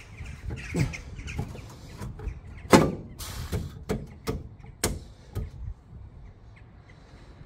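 Metal knocks and clanks from a lower control arm being handled and pushed up into a van's front suspension, one sharp knock after another. The loudest comes just under three seconds in, and it goes quieter near the end.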